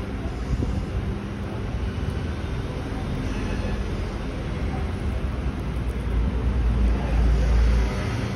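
Steady low rumbling background noise with a faint steady hum underneath, growing louder a little before the end.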